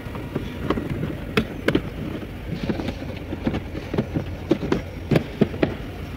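Irregular knocks, clicks and rustling of hands and tools handling things in a car's trunk beside the 12-volt battery, over a steady low hum.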